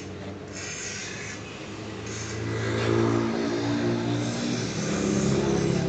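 A motor vehicle engine running nearby with a steady hum that grows louder about two seconds in.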